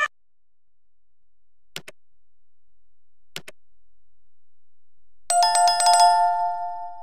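Subscribe-button sound effects: two short mouse clicks about a second and a half apart, then a notification bell chime that rings with a quick shimmer and fades over about two seconds.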